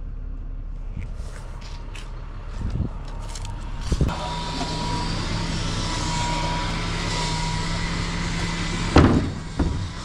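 Vehicle sounds: a knock about four seconds in, then a steady hum with a faint whine for about five seconds, cut off by a loud slam near the end and a smaller knock just after.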